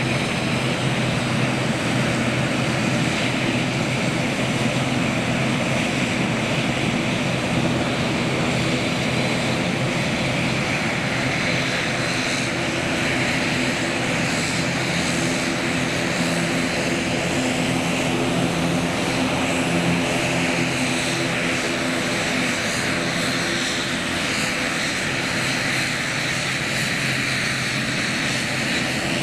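Twin turboprop engines of an ATR 72-500 regional airliner running steadily, with a stack of propeller tones that shift slightly in pitch partway through.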